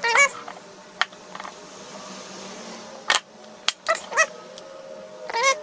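A dog whining in several short, wavering cries, with a few sharp clicks in between.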